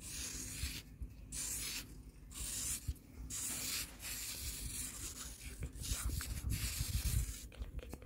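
A small metal palette knife scraping and shaving packed sand on the wall of a sandcastle tower, in a series of short gritty strokes about one a second. A low rumble comes in toward the end.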